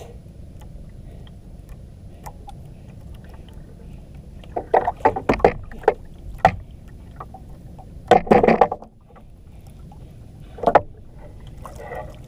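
Water lapping and wind around a small outrigger banka, a steady low wash. Several clusters of short, loud bursts break in about halfway through and again near the end.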